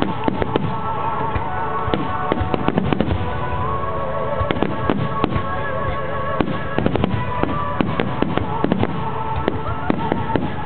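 Dense barrage of aerial fireworks: many sharp bangs in quick succession, several a second, over a continuous rumble and crackle.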